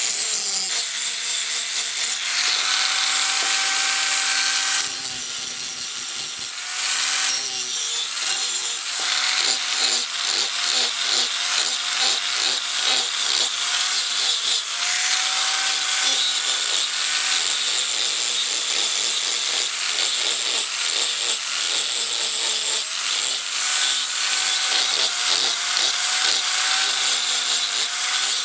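Electric angle grinder running at speed, its abrasive disc grinding a steel cleaver blank cut from a chainsaw guide bar. A steady motor whine sits under a harsh hiss of disc on steel.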